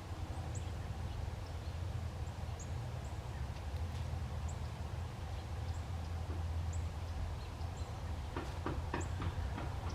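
Outdoor ambience: a steady low hum, with a small bird giving short high chirps about once a second, and a few soft knocks near the end.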